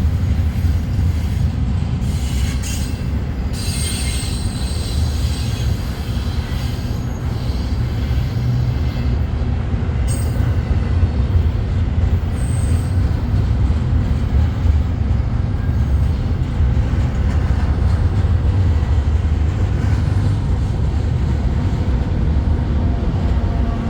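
Intermodal freight cars rolling past with a steady rumble of steel wheels on rail. Brief high-pitched wheel squeals come a few seconds in, and again around ten and twelve seconds.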